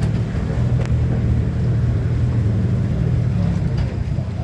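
Road vehicle on the move: a steady low rumble of engine and road noise.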